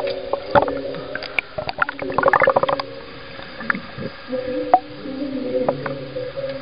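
Muffled underwater sound in an aquarium shark tank: gurgling and scattered clicks over a steady low hum, with a denser burst of gurgling about two seconds in.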